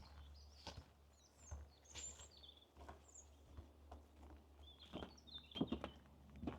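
Footsteps on a forest path, about one step every 0.7 s, with a few quick steps near the end. Small birds give short high chirps at several points.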